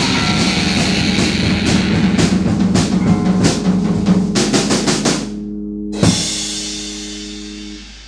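Punk rock band ending a song: a pounding drum fill, then the drums stop about five seconds in, leaving a held chord. A single last hit comes about a second later, and the chord rings and fades away.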